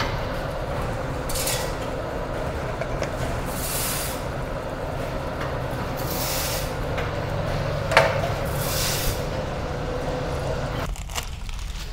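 Automatic pouch packing machine with a volumetric cup filler running steadily while filling pouches, with a short hiss about every two and a half seconds and a sharp click about eight seconds in. The running stops about a second before the end.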